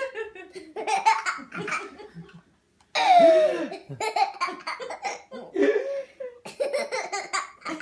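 A young child laughing hard in repeated high-pitched bursts, with a short break about a third of the way in.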